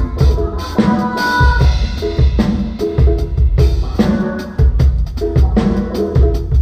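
Live band playing through a PA at a sound check: a drum kit keeps a steady beat with a heavy bass drum and snare, under held pitched notes from melodic instruments.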